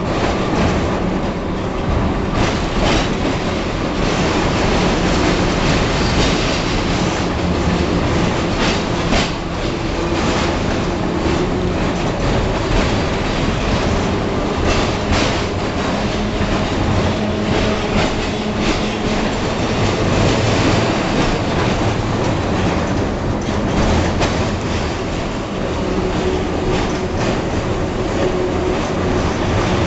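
A red-and-cream historic tram running along street track, heard from inside the car: a steady rolling rumble with the wheels clicking over rail joints and a faint low steady tone.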